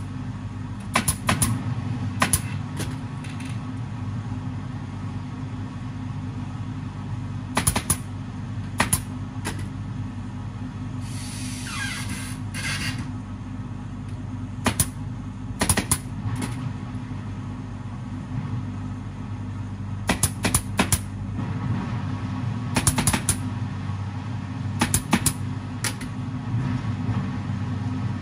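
Pneumatic upholstery staple gun firing, sharp clacks in small groups of one to three, as fabric is stapled onto a sofa frame. A steady low hum runs underneath, with a brief hiss about twelve seconds in.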